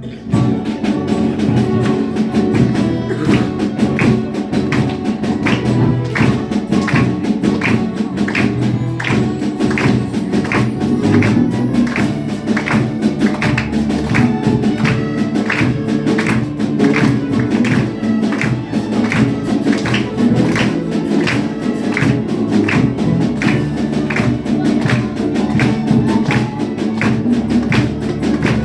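A live orchestra playing a piece in which pitched instruments sound over a steady beat of sharp percussion strokes.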